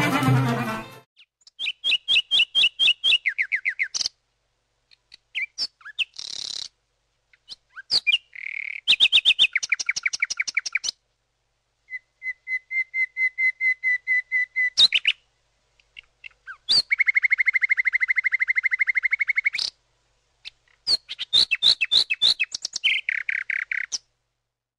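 Common nightingale singing: separate phrases of rapid repeated notes and fast trills with short silent pauses between them, including one long, even trill of nearly three seconds.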